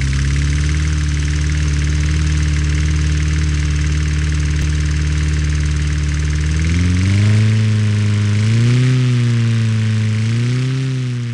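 Large engine idling steadily over a constant hiss, then revving up about seven seconds in, its pitch rising and falling a few times before it fades out.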